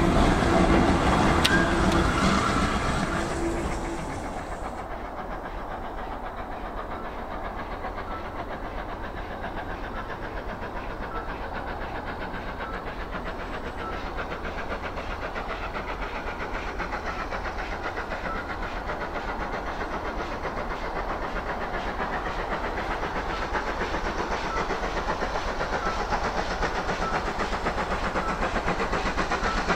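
A train passing close with its wheels clattering for the first few seconds, fading out about four seconds in. Then a GWR steam tank locomotive approaches from a distance, its exhaust beats growing steadily louder as it nears.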